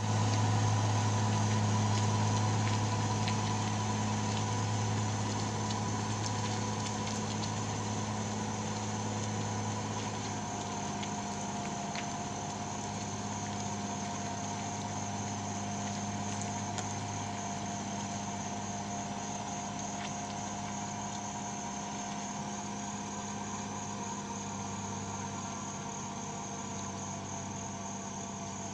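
Truck engine running with a steady low hum as the truck drives away, slowly fading.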